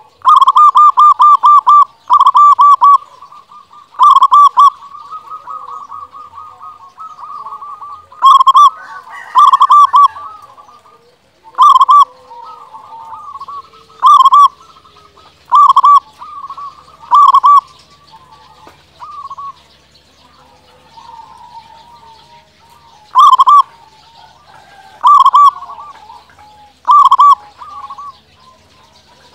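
Zebra dove (perkutut) singing: about a dozen loud bouts of quick, staccato cooing notes, each bout lasting under a second and coming every one to two seconds, with a pause of several seconds past the middle. Fainter bird calls sound between the bouts.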